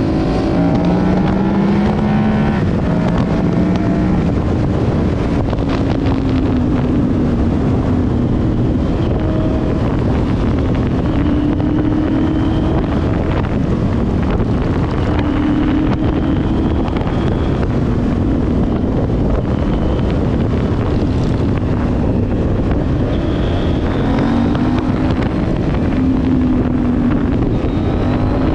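Motorcycle engines running, their pitch stepping up and down repeatedly with throttle and gear changes, under a steady rush of wind noise on the microphone.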